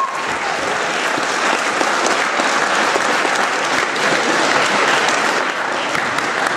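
A large audience of schoolchildren and staff applauding in a hall, sustained dense clapping at a steady level throughout.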